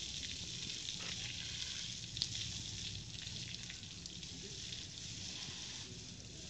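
Water spraying from a garden hose onto a water buffalo and the wet concrete around it: a steady hiss, with one sharp click a little over two seconds in.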